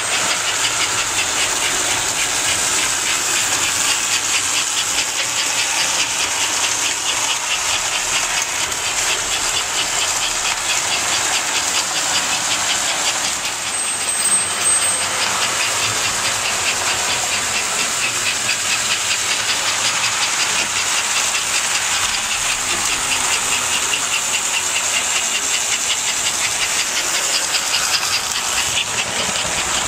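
American Flyer S gauge steam locomotive running on its track, with a steady, rapid rhythmic chuffing hiss over the whir of its motor and wheels.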